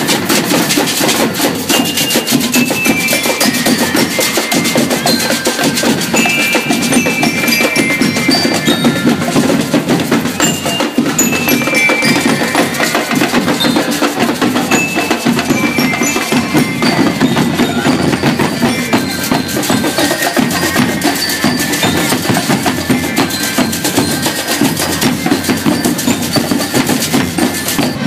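School marching band playing: snare, tenor and bass drums beating a fast, dense cadence, with a high, bell-like melody stepping down over the drums.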